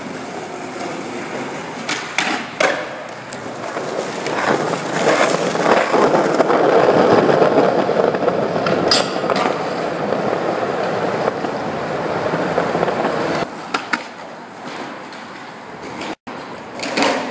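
Skateboard wheels rolling over smooth concrete, with several sharp clacks of the board's tail popping and the deck landing.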